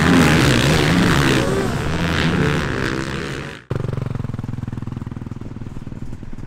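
Several motocross bikes racing, their engines revving up and down. After a sudden cut about three and a half seconds in, a single dirt bike's engine is running at low revs close by, with a rapid steady pulse.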